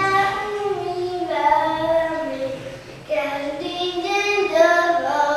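A young girl singing a Slovak folk song solo and unaccompanied, holding long notes, in two phrases with a short breath about three seconds in.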